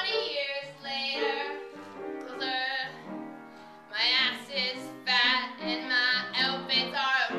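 A woman singing a comedic song solo, in sung phrases with short breaks, over instrumental accompaniment.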